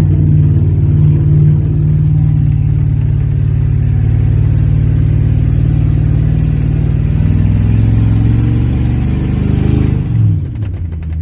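1993 Ford F-150 pickup's engine running under load, a steady drone that rises in pitch near the end and then drops away as the throttle comes off.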